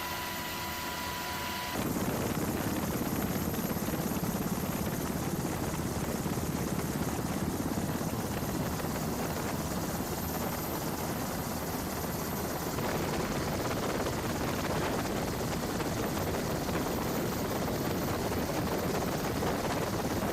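Aircraft on a carrier flight deck running steadily, a loud even noise heaviest in the low-middle range. A high steady whine cuts off sharply about two seconds in, as the aircraft noise rises.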